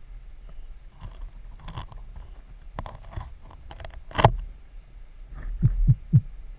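Underwater sound through a camera housing on a speargun: a steady low rumble of water moving past, a sharp click about four seconds in, and three low thumps near the end.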